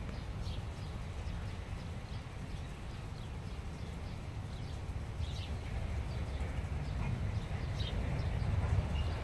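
Steady low wind rumble on the microphone, a little stronger near the end, with faint short bird chirps here and there.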